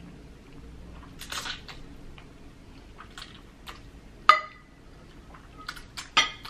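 Slurping and chewing of jjajangmyeon black bean noodles, with wooden chopsticks clinking against a plate. There is a hissy slurp about a second in, then a sharp ringing clink about four seconds in, the loudest sound, and a quick run of clicks with a second ringing clink near the end.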